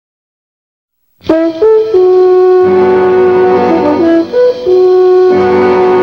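About a second of silence, then opening theme music starts suddenly: a few quick notes followed by long held chords.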